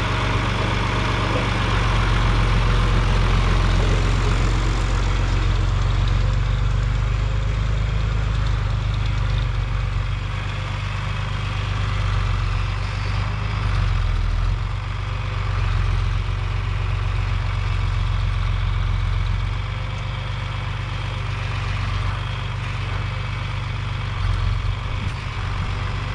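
Heavy farm machinery engine running steadily with a deep drone, its level easing and swelling slightly.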